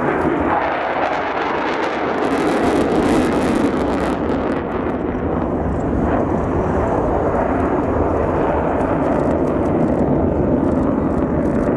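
Loud jet noise from an F-15J Eagle fighter's twin turbofan engines in display flight, steady throughout, with a crackling stretch about two to four seconds in.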